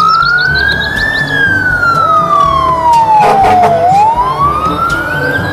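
Fire truck siren wailing: a slow rise in pitch, a long fall, then a rise again near the end.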